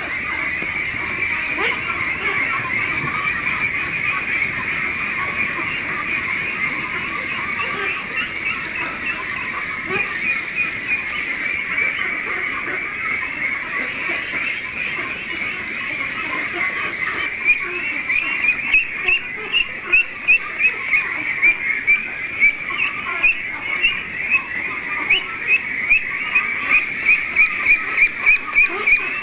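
A large flock of Pekin ducks calling without a break, many quacks overlapping into a dense chorus. A little past halfway, a run of louder, sharper sounds joins in at about two a second.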